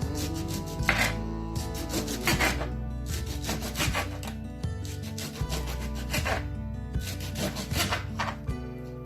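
Food being prepared by hand on a wooden board: repeated rasping strokes, about one every 0.7 seconds, over background music.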